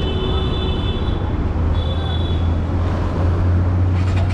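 Busy road traffic: a steady low engine drone from passing heavy vehicles that grows stronger partway through, with a high, steady squeal in the first second and again about two seconds in.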